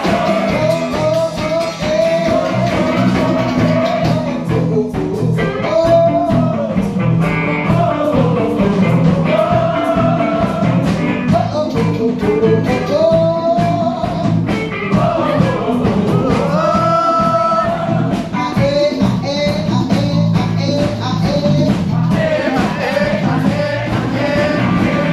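Live band playing a rock-and-roll tune, with singing over a steady drum beat.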